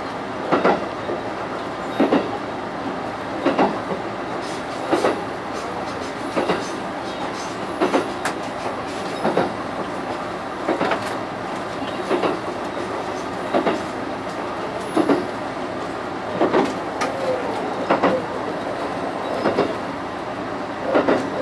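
Train wheels clicking over rail joints, usually a close double click about every second and a half, over the steady rumble of the train running along the track, heard from inside the driver's cab.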